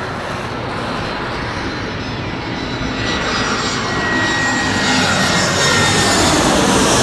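Twin-engine jet airliner on landing approach passing low overhead. The jet noise grows louder in the second half, with a high whine over the rush.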